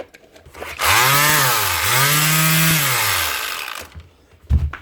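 Makita BO4900 orbital finishing sander switched on about a second in. It runs up to speed with a hum and hiss, dips briefly, picks up again, then winds down after about three seconds; the motor is running normally. A short knock near the end.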